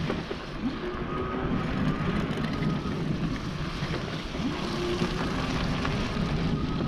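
NCM Aspen e-bike's electric motor whining under power while riding, its pitch climbing twice as the bike picks up speed, with wind rumbling on the microphone.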